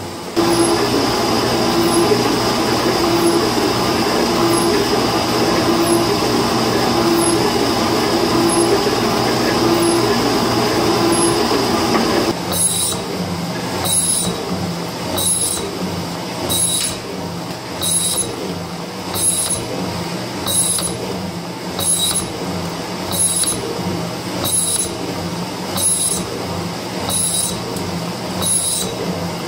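Metal shaper running a light finishing cut on steel, 10 thousandths deep with 10 thousandths feed per stroke. The ram works back and forth with a steady beat of cutting strokes, about one a second. About twelve seconds in, the sound turns sharper and more clearly stroke by stroke.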